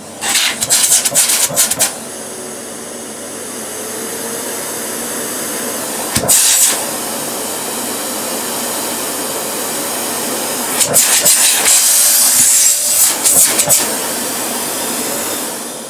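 Electrolux Bolido bagged cylinder vacuum cleaner switched on and running, its motor slowly rising as the power is turned up from minimum, with a few uneven louder surges of air along the way. The sound falls away near the end.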